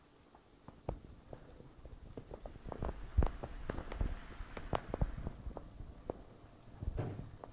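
A toddler eating and handling food at a wooden high-chair tray: small, irregular clicks, taps and rustles, thickest in the middle of the stretch, with a few sharper ticks.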